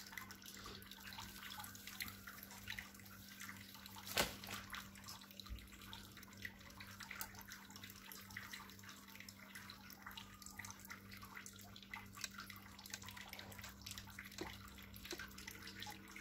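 Faint crackling sizzle of waffle batter poured onto the hot plates of an electric waffle maker, over a steady low hum, with one sharp click about four seconds in.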